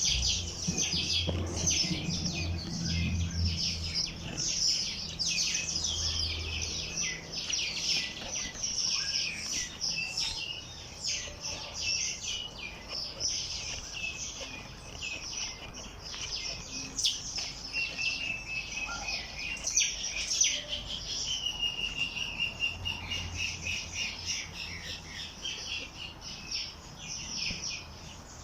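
Many wild songbirds chirping and singing at once, a dense overlapping chorus of quick high chirps and trills, with one bird's clearer whistled phrase a little past the middle.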